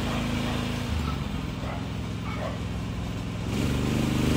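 Small engine of a homemade mini wheel loader running as the loader drives. Its note shifts about a second in, then picks up and gets louder near the end.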